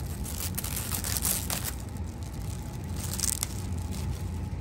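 Clear plastic protective wrap crinkling and rustling as it is peeled off an RC monster truck's body shell, in two stretches: from about half a second in, and again around three seconds in.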